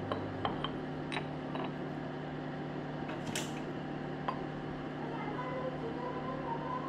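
A small ceramic pot handled on a kitchen counter: a few light clicks and taps, with a short scratchy scrape a little over three seconds in, over a steady low hum.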